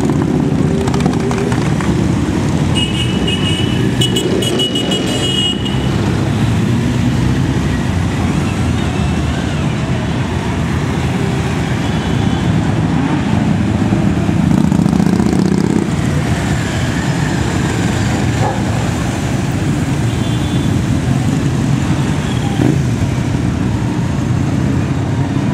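Several motorcycles riding past one after another, their engines running. A high toot sounds for a couple of seconds about three seconds in.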